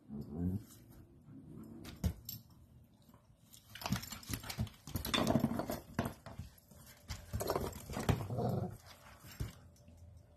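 German Shepherd dogs playing rough and vocalizing in bursts: briefly near the start, loudest from about four to six seconds in, and again around eight seconds in. Paws on the wooden deck boards give sharp clicks and knocks.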